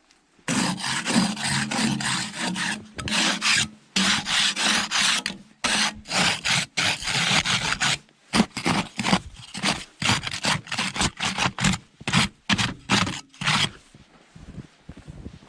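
Deep fresh snow crunching and rasping in quick, irregular strokes close to the microphone, stopping about fourteen seconds in.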